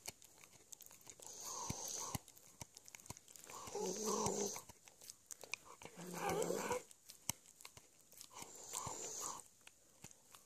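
Small long-haired terrier gnawing a chew bone at close range: teeth clicking and crunching on it, with a short low growling grumble about every two to three seconds.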